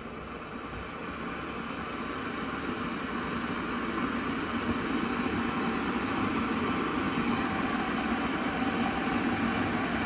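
Mainstays plastic electric kettle heating water toward the boil, a steady rumbling hiss that grows gradually louder as the water heats.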